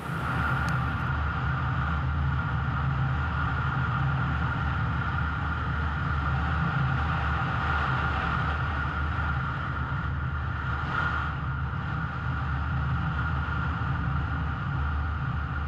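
An engine running steadily: a deep, even rumble with a steady higher hum over it.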